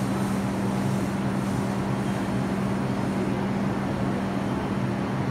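R142 subway train standing at the platform with its doors closed, giving off a steady low electrical hum over an even wash of noise.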